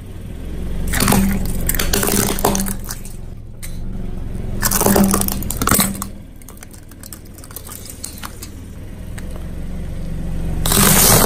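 Car tyre rolling over and crushing hard plastic emoji spring-bobblehead toys: bursts of sharp cracking and crunching about a second in and again about five seconds in, over the low hum of the car's engine. A loud crunch comes near the end.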